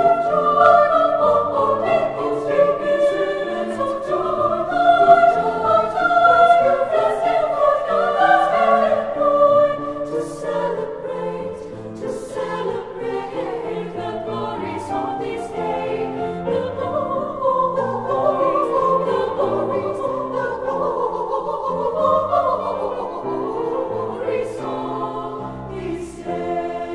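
A choir singing in several parts, the voice lines moving and interweaving, settling into a steady held chord near the end.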